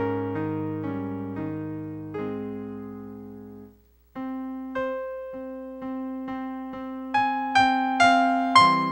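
Background piano music: held chords slowly fade, break off briefly about four seconds in, then a new passage of repeated single notes about twice a second grows louder.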